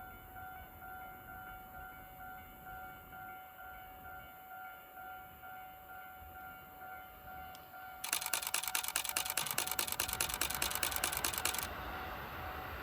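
Level-crossing warning signal ringing with steady electronic tones. About eight seconds in, a camera shutter fires a rapid continuous burst of clicks for nearly four seconds. Near the end the rumble of the approaching train builds.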